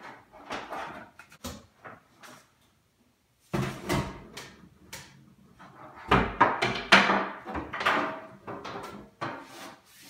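Knocks, clunks and scraping of a built-in microwave being shifted and pulled out of its wooden cabinet opening. Scattered light knocks, a sharper knock about three and a half seconds in, and a busier run of clunks and scrapes from about six seconds on.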